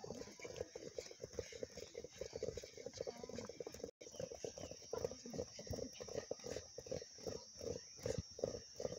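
Several players' feet tapping footballs in quick, irregular touches during a ball-control drill, a busy patter of dull thuds.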